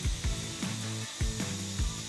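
Background music with a steady beat and a melody of short notes.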